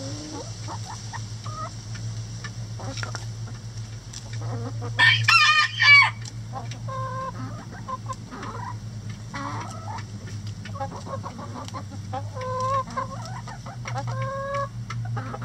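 Flock of chickens clucking with short calls throughout, and a rooster's loud crow about five seconds in, the loudest sound. A steady low hum runs underneath.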